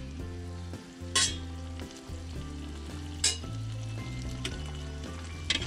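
Spaghetti and zucchini with pasta water sizzling in a frying pan while being stirred. Three short, louder hissing bursts come about a second in, past three seconds, and near the end.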